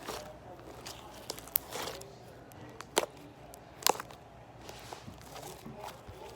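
Slime being played with: a few sharp pops and clicks, the loudest about three and four seconds in, with softer crackling between them.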